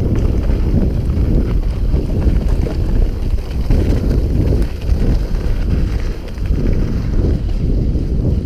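Wind buffeting the microphone of a mountain bike descending a dirt forest trail at speed, a loud rough rush that swells and dips. Light knocks and rattles come from the bike over the bumpy ground.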